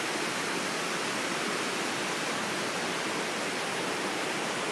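Steady rushing of the Minoh waterfall, falling water.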